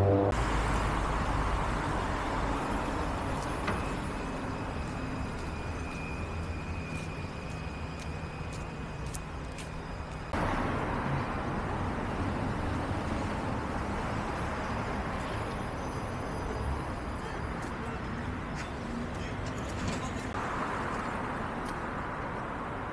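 City street ambience: a steady wash of traffic noise from cars on the road. It changes abruptly about ten seconds in and again near the end.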